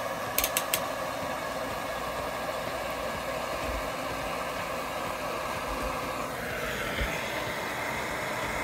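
Handheld gas torch burning with a steady hiss as its flame scorches a wooden board; the hiss turns brighter about six seconds in. A few sharp clicks come near the start.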